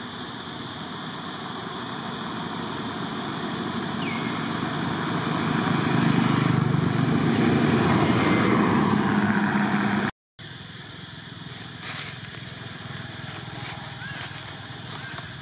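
A motor vehicle passing close, growing louder over about six seconds and staying loud, then stopping abruptly with a brief dropout about ten seconds in. After that, a quieter steady outdoor background with a few faint clicks and short chirps.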